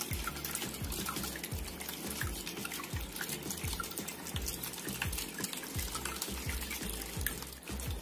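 Water trickling and dripping from a cement tabletop waterfall fountain, with background music.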